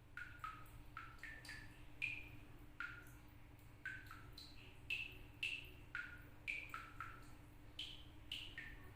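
Water dripping from a tap, each drop landing with a short pitched plink, about two a second at uneven intervals and at changing pitches, so that together they sound like a little tune.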